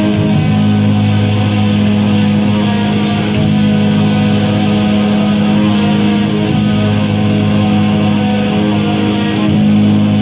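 Live band music led by guitar, a low chord held steady.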